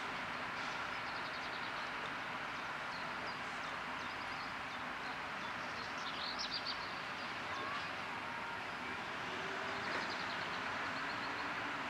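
Steady running noise of a standing ČD class 163 electric locomotive, with small birds chirping several times over it.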